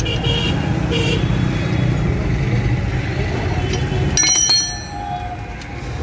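Steady low rumble of a motor vehicle running nearby, fading about four and a half seconds in. Over it come light clicks of tools working on a disc brake caliper and a short metallic ring about four seconds in.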